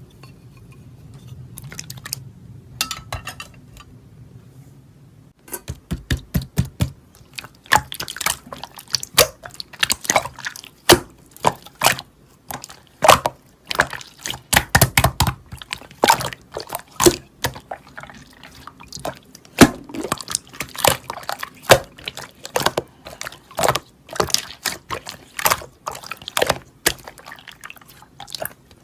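Slime being squeezed and worked by hand, giving runs of wet, sticky clicks and pops. The clicking starts about five seconds in, after quieter handling.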